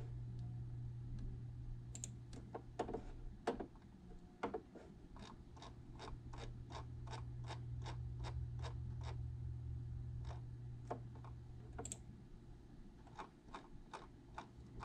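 Computer keyboard keys clicking one at a time at a steady pace of about three presses a second, over a low steady hum.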